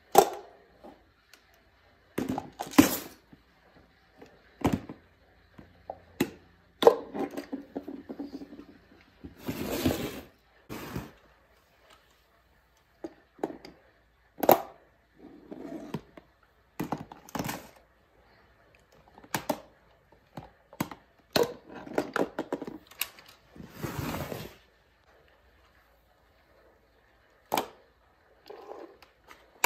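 Reacher-grabber tool clamping small plastic toy trash bins, lifting them and tipping them out into a plastic wastebasket: an irregular run of sharp plastic clacks and thunks, with short rattles of the contents sliding out, separated by pauses.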